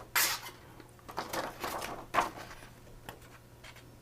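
Freshly sharpened petty knife slicing through a sheet of paper: a few short, papery cutting strokes in the first two seconds or so, then quieter. The cuts go through cleanly, with no ragged edge.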